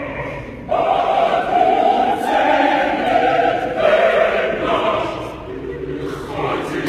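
Choir singing, with a strong full entry about a second in and held notes.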